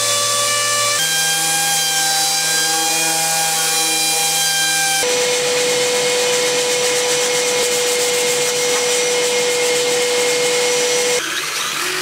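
Electric random orbital sander running steadily against a wooden guitar body, its motor whine changing pitch abruptly about one and five seconds in. Near the end it gives way to a noisier cordless drill boring into the wood.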